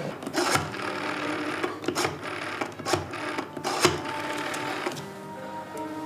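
A desk telephone being dialled by hand, its dial whirring and clicking in short runs. Soft music comes in near the end.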